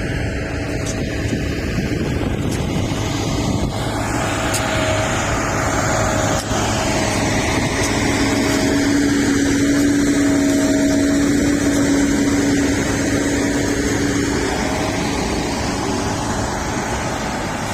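Bulldozer's diesel engine running steadily under heavy low rumble, with a steady whine that grows stronger for several seconds in the middle.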